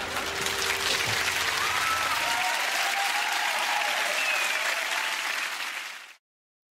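Applause from an audience, with a few voices calling out, stopping abruptly after about six seconds. A low car rumble underneath cuts off about two and a half seconds in.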